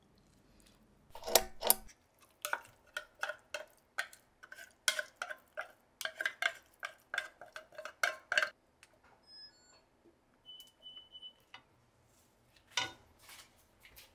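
Kitchen utensils knocking and clinking against cookware, a run of sharp ringing strikes about two or three a second for several seconds. A few short high beeps follow, then a couple more knocks near the end.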